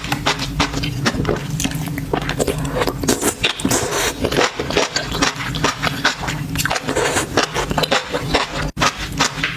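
Close-miked eating of seafood: chewing and crunching with many sharp clicks and cracks, over a steady low hum.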